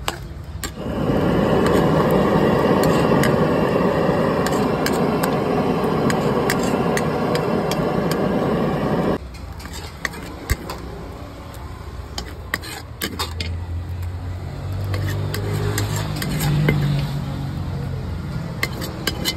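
A steel ladle stirs and scrapes noodles around a large aluminium wok (kadhai), with repeated clinks and scrapes of metal on metal. For the first half a loud steady drone covers it, then cuts off abruptly about nine seconds in.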